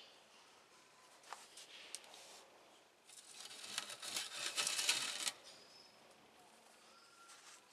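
Stainless steel bowl dragged across a wooden workbench for about two seconds, scraping and rattling, with the small lumps of recovered silver inside clinking against the metal. A couple of faint clicks come before it.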